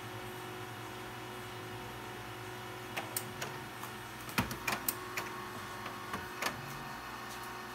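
HP LaserJet Pro CP1525nw colour laser printer running with a steady hum, its internal mechanism giving a string of clicks and clacks from about three seconds in until past six seconds. This is the printer working through its self-calibration after new toner cartridges are installed.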